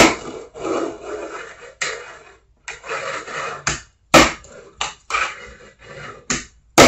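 Tech Deck fingerboard on Hot Wheels toy car wheels rolling and scraping across a table top, broken by sharp clacks of the board popping and landing. The loudest clacks come at the start, about four seconds in, and near the end.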